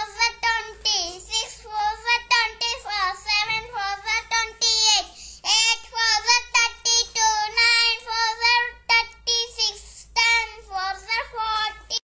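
A child's high voice chanting the four times table in a sing-song line, phrase after phrase with short pauses between.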